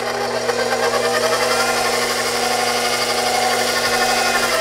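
KitchenAid stand mixer's motor running steadily on medium speed, a constant hum with fast mechanical chatter, as the paddle turns over a dime in the bottom of the bowl in a test of beater-to-bowl clearance. The dime is not moved, so the paddle still does not reach the bottom.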